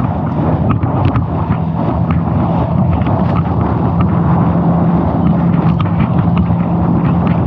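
Boat motor running steadily under way, a constant hum, with wind buffeting the microphone.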